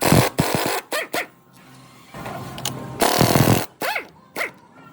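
A dog barking in short bursts, about six times.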